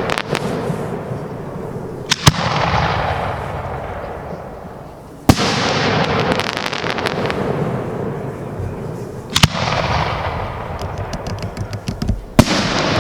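Aerial fireworks bursting overhead: four sharp loud bangs a few seconds apart, each followed by a long fading crackle. A quick run of small pops comes just before the last bang.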